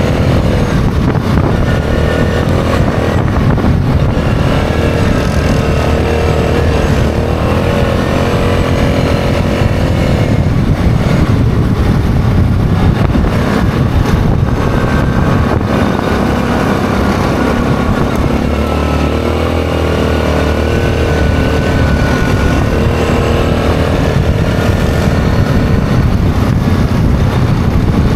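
ATV engine running at speed on a gravel road, its pitch drifting up and down a little with the throttle, over a steady rush of wind and tyre noise.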